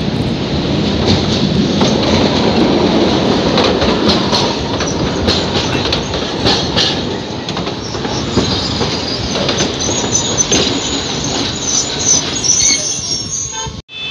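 Alexandria tram passing close by on its street track: steel wheels rumbling and clattering over the rail joints, with a high wheel squeal in the second half. The sound drops out briefly just before the end.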